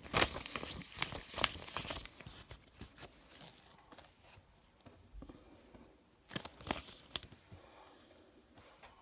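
Canadian polymer banknotes being flipped and handled in the hands, giving crisp plastic crinkling and snapping. It is busiest in the first two seconds, with a few more sharp crackles about six to seven seconds in.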